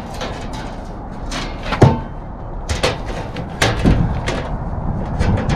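Sheet of aluminum being handled and fitted against an RV's basement box, knocking and clattering in a series of sharp clangs; the loudest comes a little under two seconds in.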